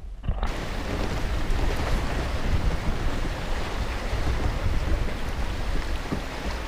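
Wind buffeting the microphone over choppy lake water, with waves slapping the kayak: a steady rushing noise with a heavy low rumble that starts abruptly about half a second in.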